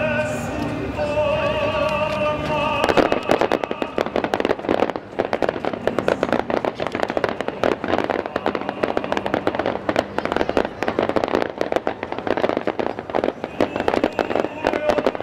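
Operatic singing with vibrato from the show's music, then about three seconds in a dense barrage of firework bursts and crackling sets in and keeps going: the finale volley. The singing comes faintly back through the bangs near the end.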